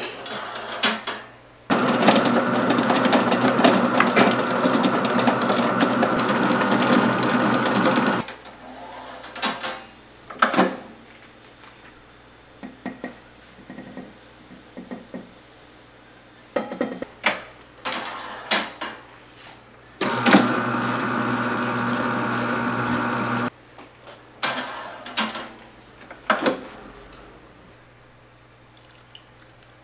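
Commercial planetary stand mixer running, its flat beater churning butter and sugar for cookie dough in the steel bowl: a steady motor sound for about six seconds early on, then again for about three seconds later. Between the runs, short clinks and knocks of bowls and utensils against the steel mixing bowl as ingredients go in.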